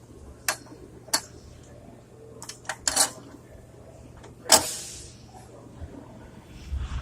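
Metal parts clicking and clinking as a wheel bearing is slid onto the axle spindle of a wheel hub, a few sharp clicks followed by a louder knock with a short ring about four and a half seconds in.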